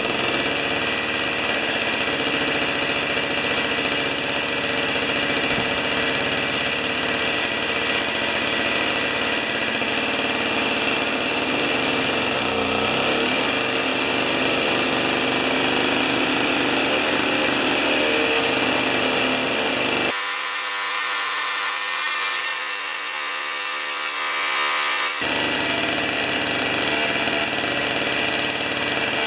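Old Tecumseh two-stroke snow-thrower engine running steadily on a fresh 40:1 fuel mix, brought back to life after sitting for years. For about five seconds near the end, the low part of its sound drops away and leaves a high hiss.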